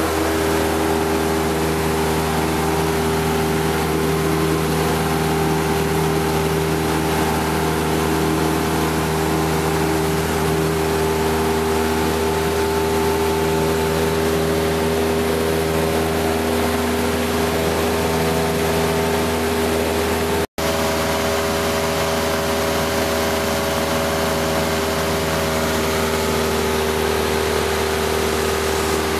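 Single-engine light aircraft's piston engine and propeller running steadily in flight, heard from inside the cockpit as an even drone with several steady tones. The sound cuts out for an instant about two-thirds of the way through.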